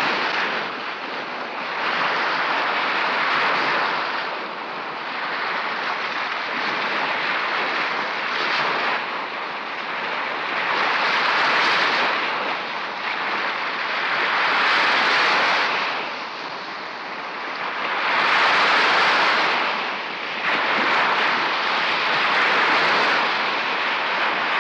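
Sea surf and wind: waves breaking on a beach, a loud rushing noise that swells and falls back every three to four seconds.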